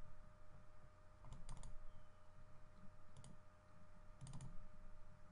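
Faint computer mouse clicks in small groups of two or three quick clicks, coming a second or two apart.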